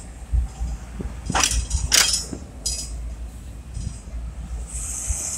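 City street noise: a steady low rumble with a few sharp clanks or snaps about a second and a half and two seconds in, and a burst of high hiss near the end.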